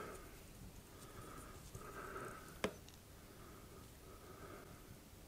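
Faint breathing through the nose close to the microphone, coming about once a second, with one sharp click about two and a half seconds in.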